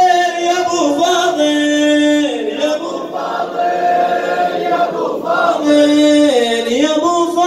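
Men's voices chanting a Shia mourning elegy (aza) in unison, holding long notes that step down and back up in pitch.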